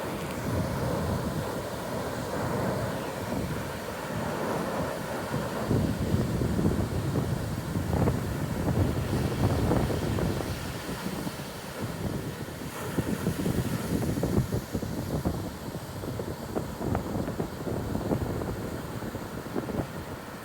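Ocean surf breaking and washing up the beach, with gusty wind buffeting the microphone in a low rumble.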